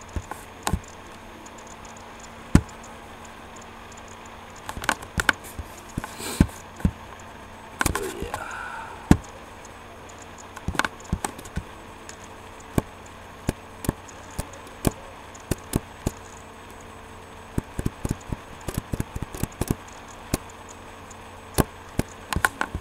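Irregular clicks and taps of typing on a computer keyboard, coming in short clusters with pauses between, over a steady faint hum.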